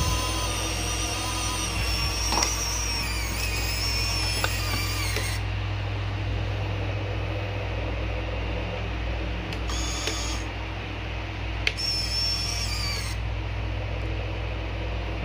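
Small electric winch motor on an MN45 RC crawler whining as it reels in line, hoisting a hanging geared motor. It runs for about five seconds, stops, then runs in two short bursts later on, over a steady low hum.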